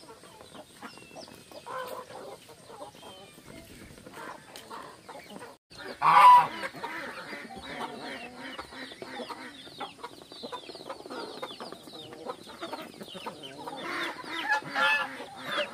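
Flock of chickens clucking and calling as they feed, with many short high calls. There is a loud call about six seconds in, and the calls get louder again near the end.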